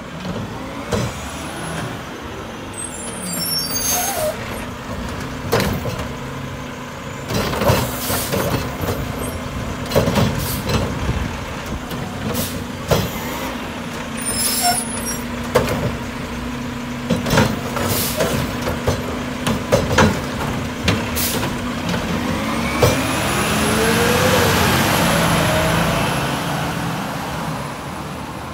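Diesel engine of a Mack LR garbage truck running at idle while its Heil Curotto-Can arm empties a cart, with repeated knocks and bangs of the cart and hopper. About 23 seconds in the engine revs up with rising pitch as the truck pulls away, then fades off.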